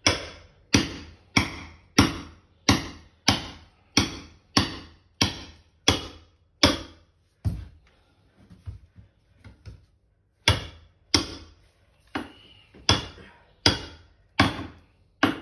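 Hammer striking a chisel held against bathroom floor tiles, sharp ringing blows about three every two seconds, chipping up the old tiling. About twelve strikes, a pause of a few seconds with only faint taps, then about seven more.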